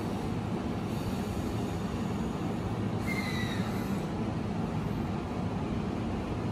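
E233-5000 series electric train standing at a platform, its onboard equipment giving a steady low hum, with a faint, short, falling high-pitched whine about three seconds in.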